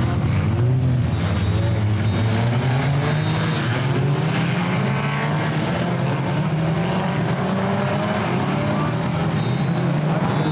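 Engines of several stock cars racing on a dirt track, many running at once, their pitch rising and falling as the drivers rev and back off.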